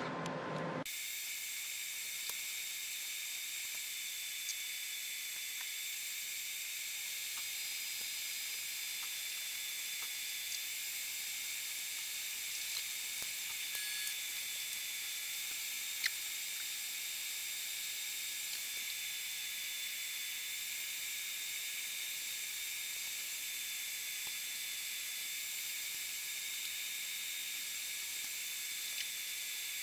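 A steady high-pitched hiss with nothing underneath it, starting abruptly about a second in, with a few faint clicks and one sharper click about sixteen seconds in.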